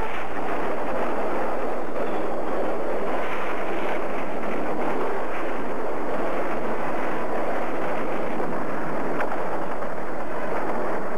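Steady rushing, hissing noise effect of billowing vapour, holding at an even level throughout.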